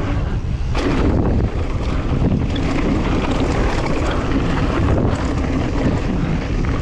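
Wind rushing over a GoPro's microphone during a fast mountain-bike descent, with the tyres and bike rumbling and clattering over rough trail in frequent small knocks.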